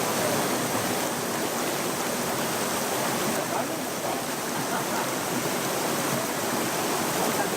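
Mountain-stream water rushing steadily, an even wash of flowing water with no distinct splashes.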